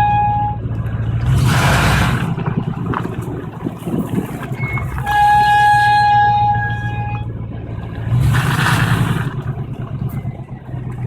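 1994 Chevy 1500's nearly new drum brakes squealing under braking: a steady high-pitched tone that fades out half a second in and comes back for about two seconds midway, over the truck's low running rumble. Two short rushes of hiss come in between. The squeal appears only after half an hour of driving, which the owner wonders is to do with heat dissipation.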